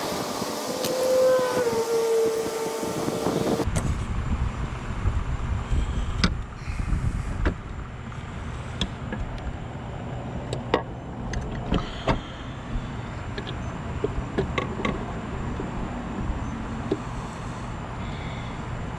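Scattered short metallic clicks and clinks of clutch parts and tools being handled on a Yamaha Raptor 700 ATV's open clutch case, over a steady low rumble. The first few seconds instead hold a wavering pitched tone, which stops abruptly.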